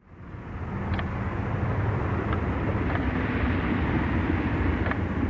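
Aquarium pump humming steadily under a hiss of moving water, with a few faint clicks; it fades in at the very start.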